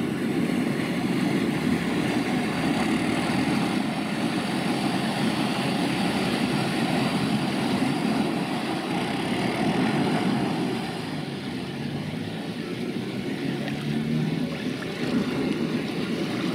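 A boat engine running steadily, with water churning, easing off a little after about ten seconds.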